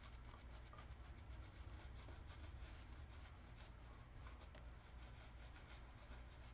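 Faint brisk rubbing of a badger-hair shaving brush working lather over the face, in quick, closely repeated strokes.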